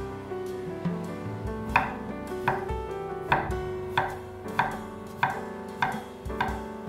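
Kitchen knife chopping a peeled pear into small pieces on a wooden cutting board: a row of sharp, evenly spaced knocks, about eight of them, roughly one every two-thirds of a second, over soft background music.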